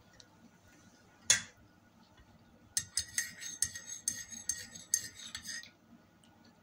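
Eating utensil clinking and scraping against a plate: one sharp knock about a second in, then about three seconds of quick clicks and scrapes.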